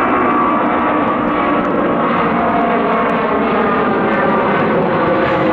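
Airbus A300-600ST Beluga's twin General Electric CF6 turbofans at climb power just after take-off, passing overhead, loud and steady.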